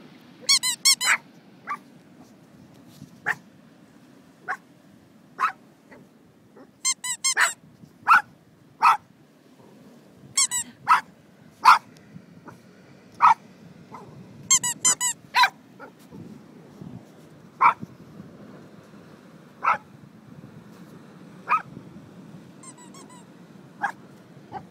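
Dog barking in single sharp barks, one every second or two, broken five times by quick runs of high-pitched squeaky yelps.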